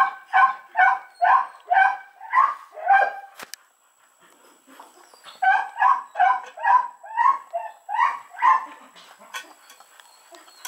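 A dog barking in quick runs of short, high yips, about two or three a second, with a pause of about two seconds between the two runs.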